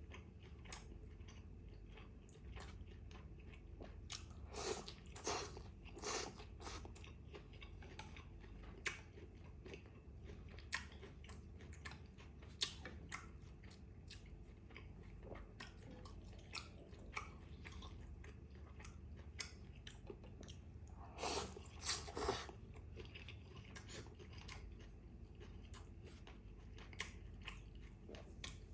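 Close-miked chewing of beef vermicelli salad: a run of soft mouth clicks and wet chewing, with two short spells of louder bites, a few seconds in and again past the middle.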